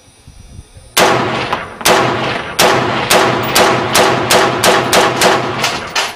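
Armalite AR-18 rifle in 5.56x45 firing a string of more than a dozen shots, each with a short echo. The first few are about a second apart, then they come quicker at roughly three a second.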